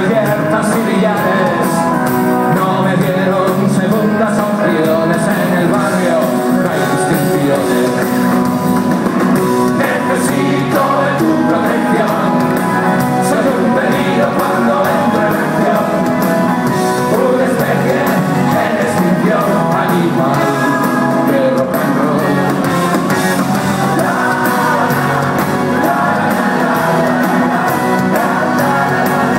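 Live rock-and-roll band playing with a male lead singer, heard from within the crowd in a concert hall.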